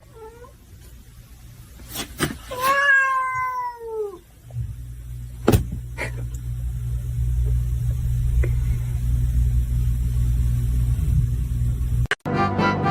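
A cat meowing: a few short meows, then one long meow that falls in pitch, with sharp clicks just before it. A low rumble follows, with a sharp knock partway through.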